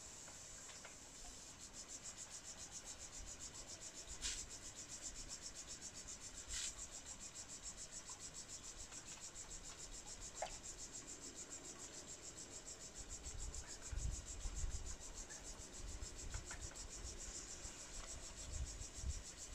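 Insects chirring: a high, steady, finely pulsed drone, with a few faint clicks and low rumbling in the last few seconds.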